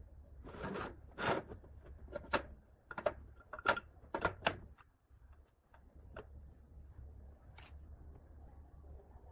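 Galvanized steel tubes knocking and clattering as they are handled and set down on a metal workbench: about a dozen sharp knocks over the first five seconds, then two lone clicks.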